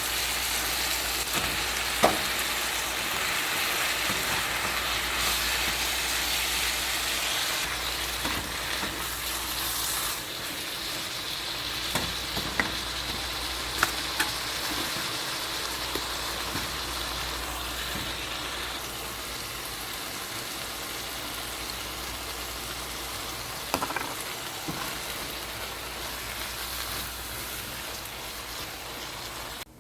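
Food sizzling steadily as it fries in a pan, just seasoned, with a few sharp clicks of a utensil against the pan while it is stirred.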